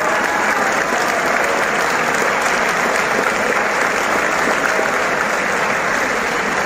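Large audience in a hall applauding: steady, dense clapping from many people.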